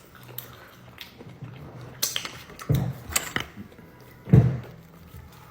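Close-up mouth sounds of someone chewing food, with a few short, sharp smacks about two, three and four seconds in.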